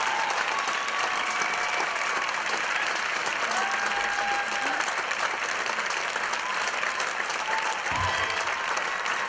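Theater audience applauding steadily, with a few drawn-out cheers over the clapping.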